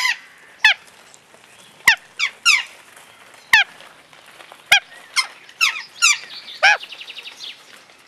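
Parrot calling at close range: about eleven short, loud calls, each falling in pitch and irregularly spaced, then a quick run of softer stuttering notes near the end.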